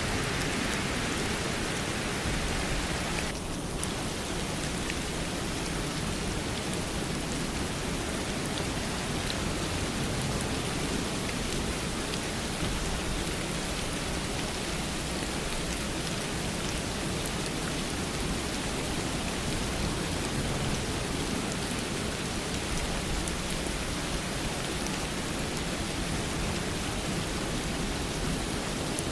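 Steady rain falling: an even hiss of rain with scattered drop ticks, dipping slightly for a moment about three seconds in.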